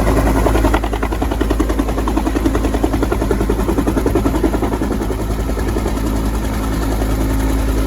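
Eurocopter EC145 twin-turbine helicopter running close by: a fast, regular beat from the rotor blades over a steady turbine hum.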